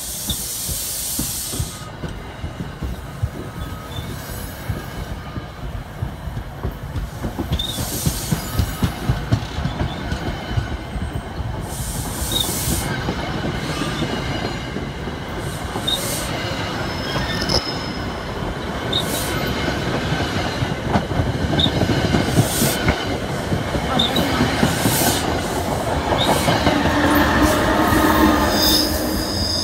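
New Jersey Transit push-pull passenger train of Comet coaches passing close by, with a steady rumble and rattle of wheels on the rails and a brief high hiss every few seconds. The sound grows louder near the end as the rear ALP-46 electric locomotive, pushing the train, goes past.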